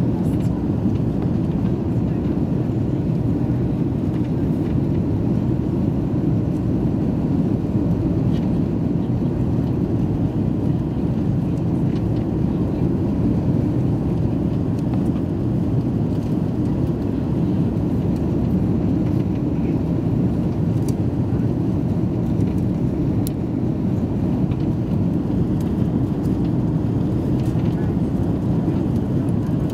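Steady low-pitched engine and airflow noise inside the cabin of an Airbus A330 in its climb after takeoff.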